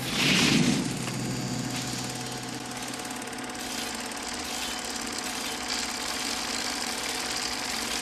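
Film projector running with a steady, fast mechanical chatter. It is loudest in the first second, then settles to an even level.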